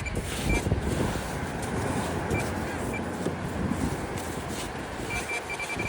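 Metal detector target tone: a few short high beeps early, then a quick string of beeps near the end as it sounds off on a buried coin, over a steady rush of wind and surf.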